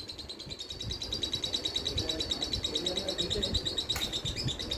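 Pet parrots chattering in a steady, rapid high twitter, with one sharp click about four seconds in.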